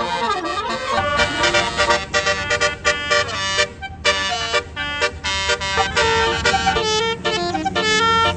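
Tour bus basuri 'telolet' musical horn playing a melody of short, stacked horn notes over a low rumble. It opens with a swoop down and back up in pitch.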